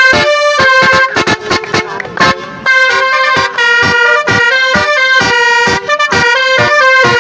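Telolet musical bus horn, a set of air horns switched note by note, playing a fast tune of short chained notes with brief breaks between them.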